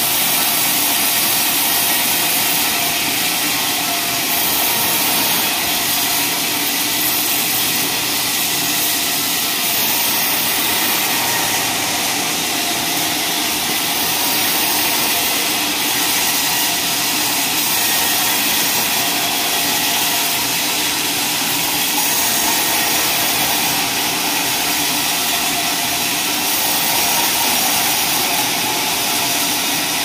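Vertical band sawmill cutting lengthwise through a large hardwood log: a loud, steady, unbroken sawing noise with the saw's drive running beneath it.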